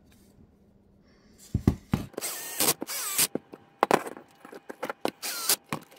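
Parts of a model excavator boom being handled and fitted together: a run of sharp clicks, knocks and short scraping rubs of plastic and metal, starting about a second and a half in.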